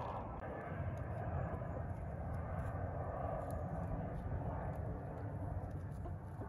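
A steady, distant engine drone.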